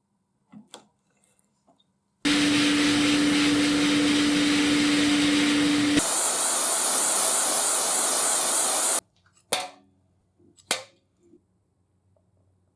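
A motor-driven workshop power tool runs with a steady hum for about four seconds, then switches abruptly to a harsher hissing noise for about three seconds that cuts off suddenly. Two sharp knocks follow, about a second apart.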